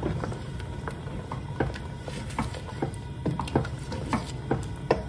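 A wooden spoon stirring a thick meat curry in a stainless steel pot: irregular clicks and scrapes of the spoon against the pot, several a second, over a low steady hum.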